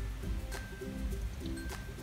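Background music: a light melody of held notes that step from one pitch to the next.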